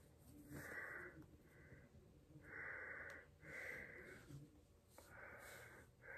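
A person's faint breathing through the open mouth: about six breaths in and out, each lasting under a second.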